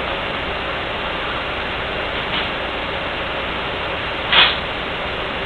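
Steady hiss of background noise, with a faint knock about two seconds in and a sharper, louder knock near the end as small pump parts are handled on the bench.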